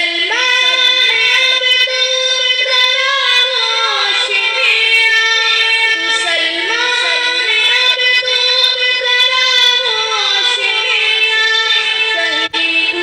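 A young voice singing an Urdu nazm with no instruments, in long held notes that bend and ornament. The voice breaks off for a moment near the end.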